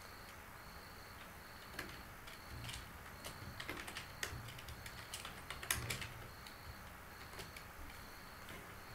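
Computer keyboard typing: a run of keystroke clicks in the middle, heaviest about two thirds of the way through, behind a faint, evenly repeating high chirp.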